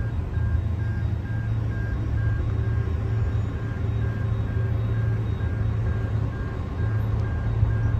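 Diesel locomotives rumbling steadily. Over it, an electronic warning signal sounds in even pulses about twice a second, typical of a level-crossing alarm sounding for the approaching engines.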